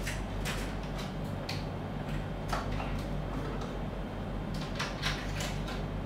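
Scattered light clicks and taps of plastic hardware as a red nylon safety padlock, a lockout hasp and a danger tag are handled, several of them close together near the end, over a steady low hum.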